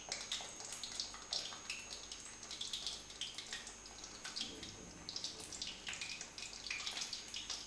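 Hot ghee sizzling in a karahi around frying pakoras, a steady hiss with frequent sharp crackles and pops.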